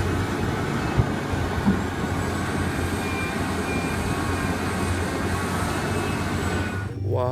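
Steady engine-like rumble of a toy excavator truck, with two light clicks about one and nearly two seconds in.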